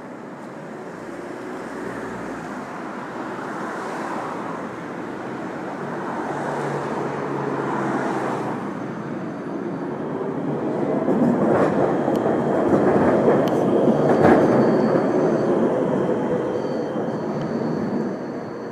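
Electric tram passing close by on street tracks, its rumble building to a peak about two-thirds of the way through and then fading as it moves off, with a few sharp clacks from the wheels near the loudest point.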